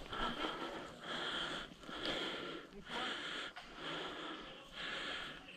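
A person breathing hard close to the microphone, one breath about every second.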